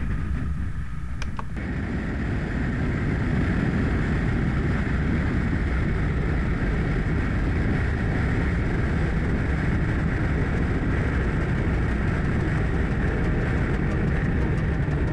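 Motorcycle cruising at highway speed: a steady drone of engine and wind noise on a bike-mounted camera's microphone, with a slight change in the hiss about a second and a half in.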